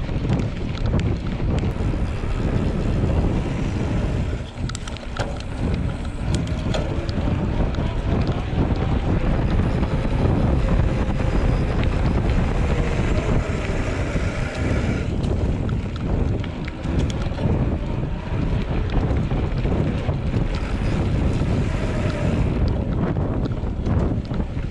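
Wind buffeting the microphone: a constant, low, rushing rumble. A faint higher tone shows through it for several seconds and cuts off abruptly about fifteen seconds in.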